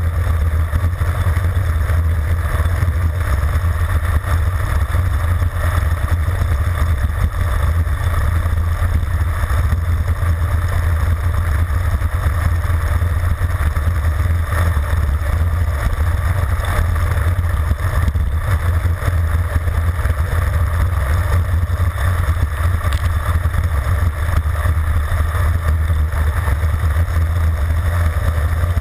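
Wind buffeting the microphone of a handlebar-mounted camera on a high-speed road-bike descent: a loud, steady, low rumble.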